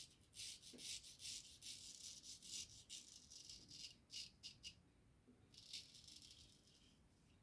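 Razor scraping through lathered stubble in quick, short strokes on the second pass of a wet shave, faint; the strokes stop for a moment and then another short run follows.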